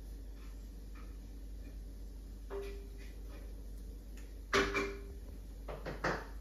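Wine cork batted by kittens' paws, knocking on a tiled floor: a light tap about two and a half seconds in, the loudest knock about four and a half seconds in, and two more taps near the end.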